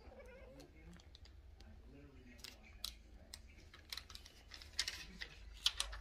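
Faint clicks and light rustling of a kitten's claws and paws on a Bible's pages and cover as it climbs over it, sparse at first and busier in the second half.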